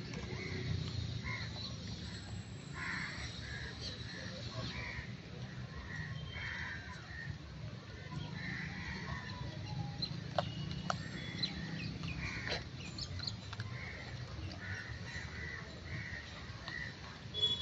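Short animal calls repeating irregularly about once a second over a steady low rumble, with a few sharp clicks about two-thirds of the way through.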